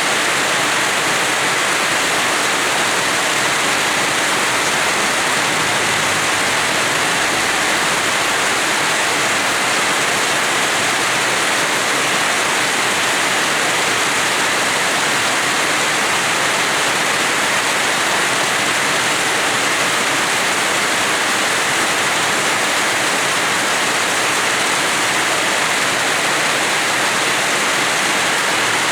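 Rain falling steadily in a yard, a dense even hiss that does not change.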